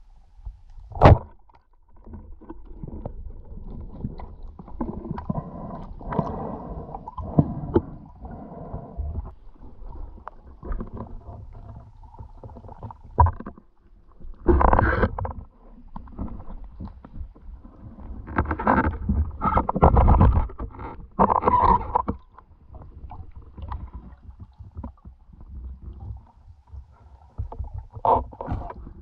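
Muffled underwater sound through a camera housing: irregular rushing and rumbling of water as the diver moves, with one sharp knock about a second in and louder stretches of churning midway and later.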